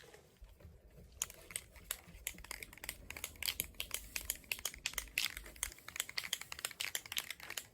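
Aerosol spray-paint can being shaken, its mixing ball rattling in many quick, irregular clicks, ahead of the next coat of paint.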